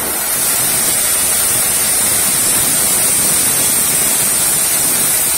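Plastic scrap dryer machine running on wet plastic flakes: a steady hiss like spraying water, with no pauses or knocks.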